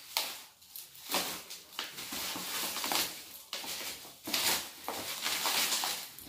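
Plastic bubble-wrap packaging crinkling and rustling as it is handled and pulled open by hand, an uneven run of crackles.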